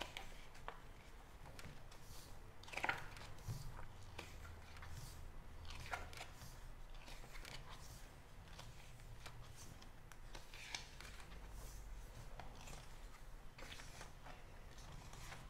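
Glossy photobook pages being turned and smoothed by hand: a few soft paper rustles and slides spread out, the clearest about three seconds in, over a low room hum.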